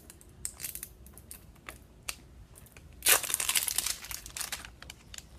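Ice cream cup packaging being opened: plastic wrapping and lid crinkling and rustling in short bursts, with a louder stretch of crinkling about three seconds in.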